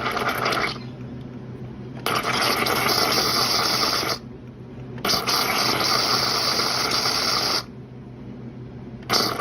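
Nespresso machine's pump buzzing steadily while soapy water is run through the milk-frother line during a cleaning cycle, with hissing spurts of water and steam from the frother nozzle: two spurts of about two seconds in the middle, shorter ones at the start and near the end.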